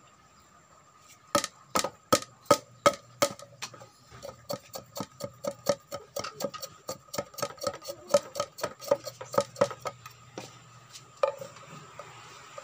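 Machete chopping at a green bamboo branch on a wooden stool: a run of sharp knocks. There are a few slower, harder strokes first, then quicker, lighter ones at about four a second, stopping near the end with one last strike.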